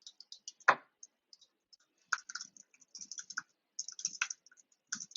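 Typing on a computer keyboard: short runs of key clicks with gaps, one louder keystroke under a second in.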